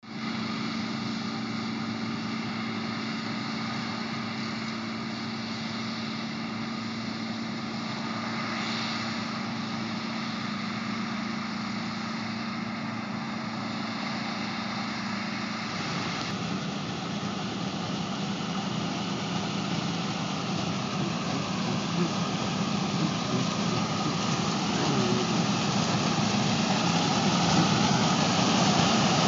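John Deere combine harvester's diesel engine and machinery running steadily. About halfway through, the sound shifts and a wavering higher whine comes in, and it grows gradually louder toward the end.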